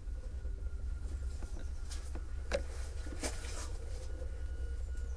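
Low steady rumble with a few faint scuffing footsteps on rocky, leaf-strewn steps, about two to three and a half seconds in.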